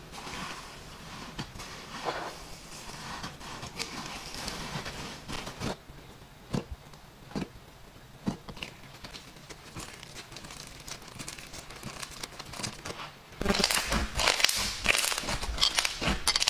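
Slime being squeezed and poked by hand: a stream of sticky crackles and small pops, becoming louder and denser about thirteen seconds in.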